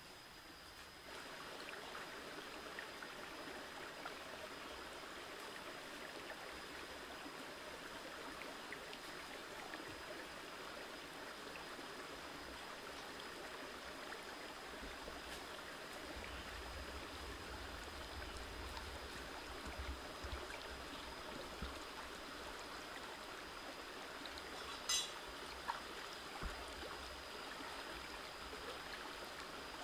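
A shallow stream running over rocks, a steady rushing and trickling, with a faint steady high whine over it and a few sharp clicks near the end.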